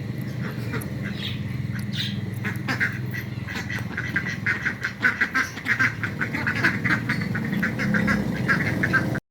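A group of ducks quacking: scattered calls at first, then a rapid, overlapping run of quacks from about three seconds in, over a steady low hum.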